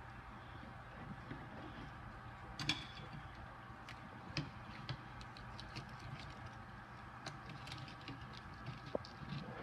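Scattered light clicks and taps of a plastic pet tank and its lid being handled, the sharpest about three seconds in, over a faint steady hum.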